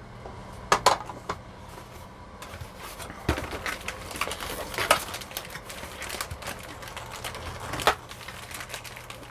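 Hard plastic toy parts being handled, a scatter of small clicks and clatters with a few sharper knocks: two close together about a second in and one near the end.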